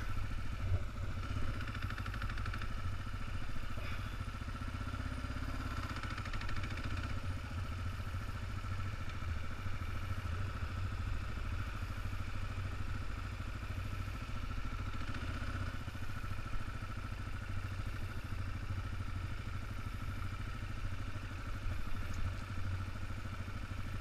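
Kawasaki KLR650's single-cylinder four-stroke engine running steadily while the bike rides along a gravel trail, heard from a helmet-mounted camera.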